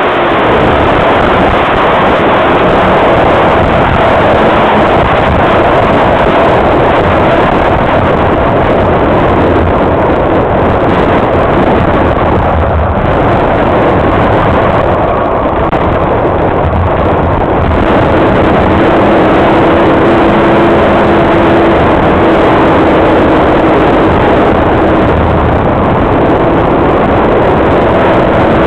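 Pro stock race car engine running hard at racing speed, a loud, steady, dense roar heard from a camera mounted on the car's body, easing slightly once about halfway through.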